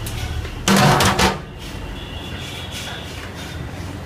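A large metal lid is set down on a big pot of biryani to seal it for dum cooking: a loud clank and scrape of metal on metal about a second in, then a steady low background.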